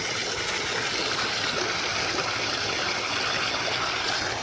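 Evinrude Yachtwin 3432C two-stroke outboard motor running steadily, its propeller churning water into an even rushing sound.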